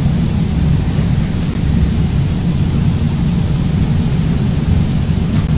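Steady, loud low rumbling noise with no distinct events.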